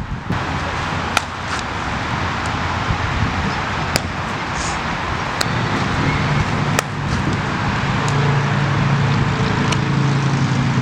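Steady rushing wind noise on the microphone, with a few sharp knocks. About halfway through, a low steady hum joins in.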